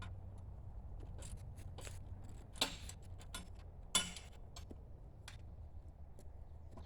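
Scattered light clicks and taps of gear being handled, with two sharper knocks about two and a half and four seconds in, over a low steady rumble.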